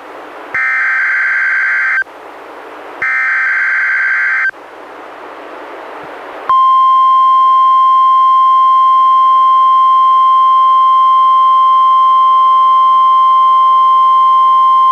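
EAS SAME header data bursts and warning alarm tone of a NOAA Weather Radio required weekly test, played through a Reecom R-1630 weather radio. First come two short buzzing bursts of digital data tones about a second apart, then a couple of seconds of radio hiss. About six and a half seconds in, the steady 1050 Hz warning alarm tone begins and holds.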